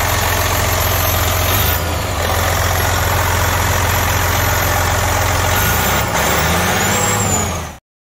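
Detroit Diesel Series 60 inline six-cylinder turbodiesel truck engine idling steadily, its engine-driven fan turning. The pitch rises a little near the end before the sound cuts off suddenly.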